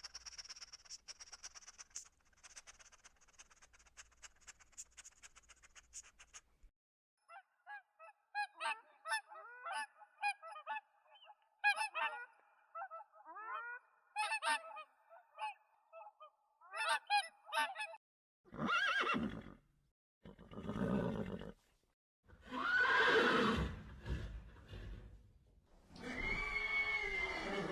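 Farm animal calls in sequence. First comes a faint steady hiss, then poultry calling in many short, quick honks and cackles. Then come four long horse whinnies, each rising and falling in pitch.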